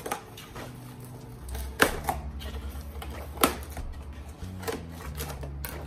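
Scissors snipping through clear packing tape on a cardboard plant box: a few sharp snips, the loudest about two seconds in and again about three and a half seconds in. Soft background music plays under it.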